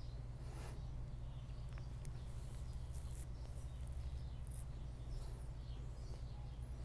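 Quiet room tone: a steady low electrical hum with faint, scattered high-pitched hiss and flecks.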